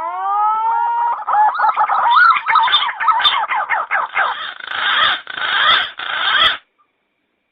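Green pigeon (punai) call used as a hunter's lure: a few rising whistled notes that break into a fast, warbling run of fluting whistles, which cuts off suddenly about six and a half seconds in.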